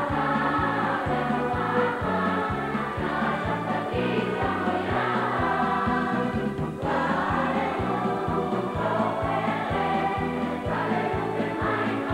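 Large boys' choir singing in full voice, over a steady pulsing bass line.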